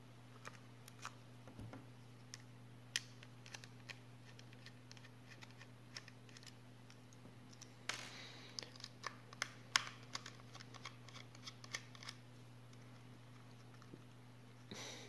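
Small scattered clicks and taps of a laptop's case being taken apart by hand, screws and plastic parts handled, with a quicker run of clicks about eight seconds in, over a steady low hum.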